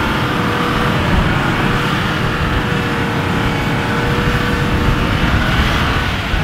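A stuck SUV's engine running under steady throttle while its wheels spin in deep snow, a held whine over a dense rushing noise: the tyres have no grip.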